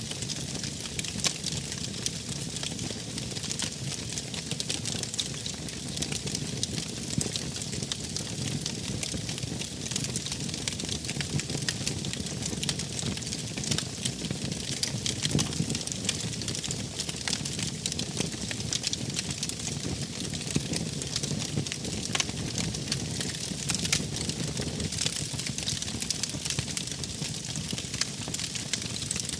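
Wood fire burning with a steady low rumble and hiss, with many small sharp crackles and pops at irregular intervals.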